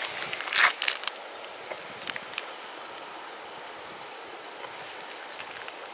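A short splash of water about half a second in as a hand lets a tiny turtle go into a river, followed by a few small clicks. After that there is only a steady hiss of night insects.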